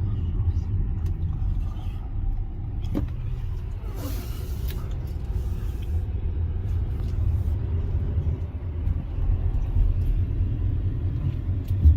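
Car driving, with a steady low engine and road rumble and a brief hiss about four seconds in.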